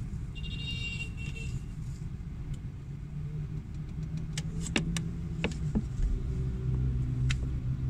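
A motor vehicle engine running with a steady low hum. A cluster of sharp clicks comes about halfway through.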